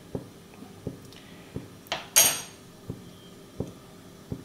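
A metal spoon clinking against a frying pan of hot oil, with one brief sharp clatter about two seconds in. Under it, a faint steady hum and soft regular ticks about every three-quarters of a second.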